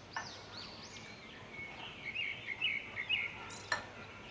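Small birds chirping repeatedly, in quick arched calls, with a denser run of chirps in the middle. A spoon clicks twice against a glass bowl while dry flour coating mix is stirred.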